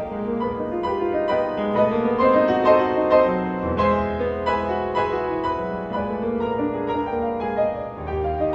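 Background piano music, with many sustained notes changing continuously.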